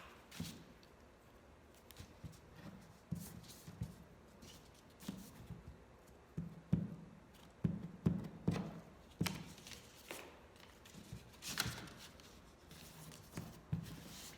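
Paper rustling and scattered light taps and knocks on a tabletop as a picture is glued into a paper craft by hand.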